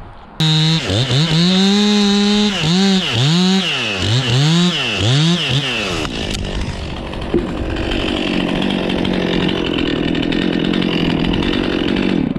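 Two-stroke chainsaw comes in abruptly about half a second in and is revved up and down several times. From about halfway it runs steady under load, cutting through a tree trunk, and stops abruptly near the end.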